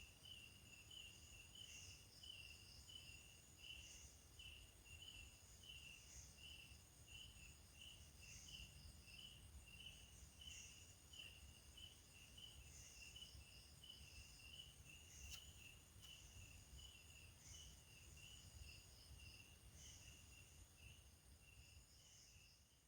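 Faint night chorus of crickets: one chirping in a steady rhythm about twice a second, with a higher insect call pulsing about every two seconds and a steady high whine beneath. There is a low rumble of background noise.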